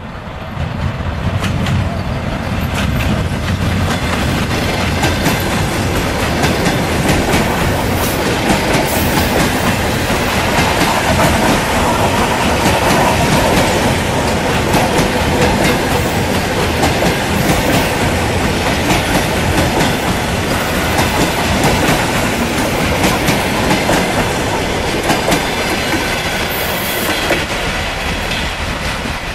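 ED2T DC electric multiple unit passing close by, its wheels clattering over the rails. The sound swells over the first couple of seconds, holds loud while the cars go by, and eases a little near the end.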